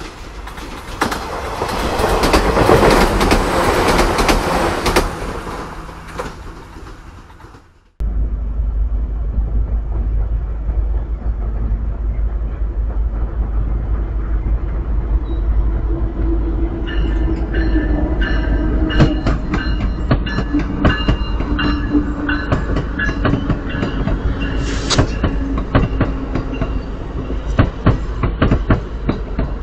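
A loud rushing noise swells and fades over the first several seconds, then cuts off. Then a constant low rumble, and a little past halfway an Amtrak bi-level passenger train comes through with a steady whine and quick clicking of its wheels over the rail joints.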